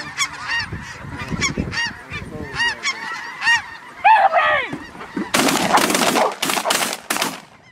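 A big flock of snow geese calling constantly, many overlapping high honks. From about five seconds in, a loud rough rush of noise with several sharp cracks covers the calls.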